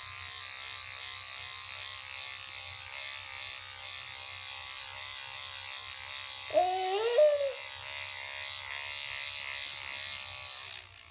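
Children's electric toothbrush buzzing steadily, cutting out briefly near the end. About six and a half seconds in, a baby gives one short vocal squeal that rises and falls in pitch, the loudest sound.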